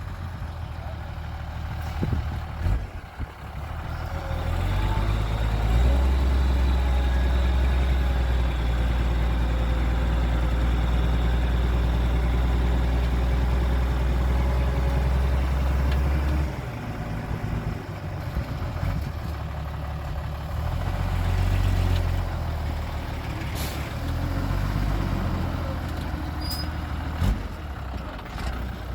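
Heavy diesel engines of construction machinery running; about six seconds in one rises to a loud, steady working load and drops back some ten seconds later, with a faint high whine alongside. A single sharp knock comes near the end.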